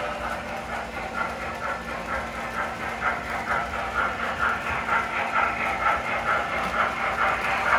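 O gauge model triplex steam locomotive running on the layout, its onboard sound system giving a steady chuffing of about three chuffs a second over the rolling noise of the train.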